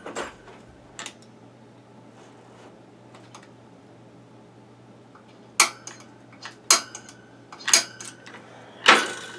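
Center punch tapping on metal to mark hole positions for drilling: four sharp metallic taps, each with a short ring, about a second apart in the second half, after a few faint clicks.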